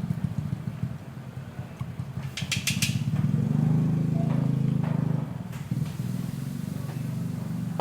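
A small engine running steadily at a low pulse, growing louder for a couple of seconds in the middle, with four quick clicks about two and a half seconds in.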